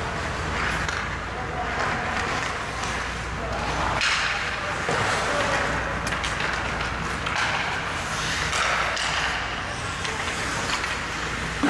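Ice hockey play: skates scraping and carving on the ice and sticks clacking on the puck, with indistinct shouts from players.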